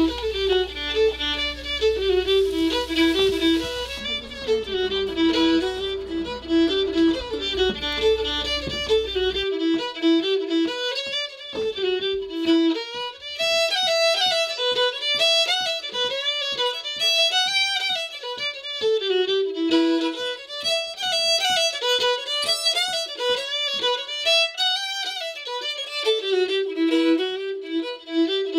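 Solo bowed string instrument, played fiddle-style, carrying a quick melody that rises and falls. A low steady hum sits underneath and stops about nine seconds in.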